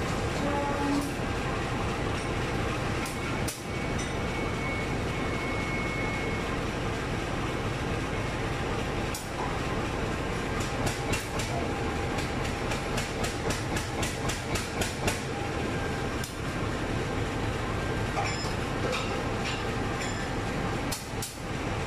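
Diesel-electric locomotive running steadily at idle, a continuous low engine hum. Around the middle, a quick run of sharp taps comes at about three a second, with a few single knocks elsewhere.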